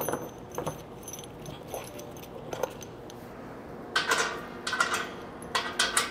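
Loose brass wing nuts clinking and jingling together in a gloved hand as they are put back onto the studs of a stainless steel filter housing lid. A few light clicks come in the first half, then three short bursts of jingling in the second half.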